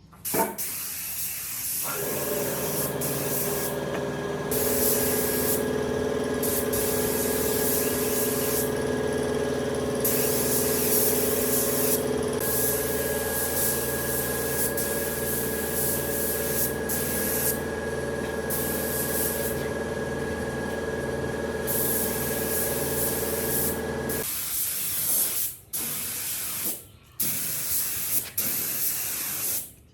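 Air spray gun hissing in repeated bursts, starting and stopping many times, while a motor hums steadily under it and stops a few seconds before the end.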